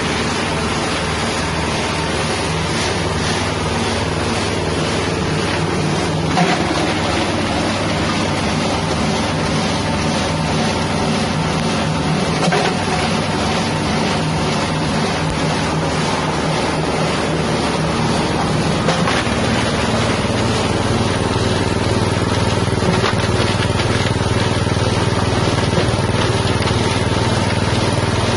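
Small 6.5 hp engine driving a spice grinding machine, running steadily, with a couple of brief knocks about 6 and 12 seconds in.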